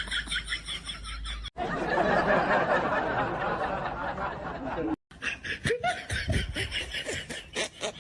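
People laughing and snickering in short repeated pulses, in clips joined by abrupt cuts. Between them is a loud, even, noisy stretch of about three seconds.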